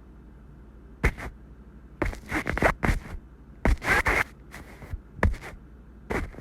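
The "sénèque" meme sound effect: a string of loud, scratchy, distorted bursts starting about a second in and ending just before the close. Under it is a faint steady hum.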